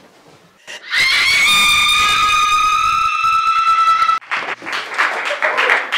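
A loud, high, steady tone with overtones, sliding up briefly at its start, held for about three seconds and cut off abruptly, followed by a stretch of dense crackling noise.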